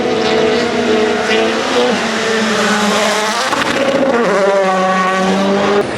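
Rally1 rally car's turbocharged 1.6-litre four-cylinder engine running hard at high revs. The note steps down about two seconds in, flares up quickly just past halfway, then drops to a lower steady pitch.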